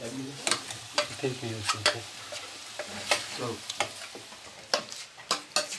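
Pakoras deep-frying in hot oil in a karahi, a steady sizzle, with many sharp clicks and scrapes of a utensil stirring them against the pan.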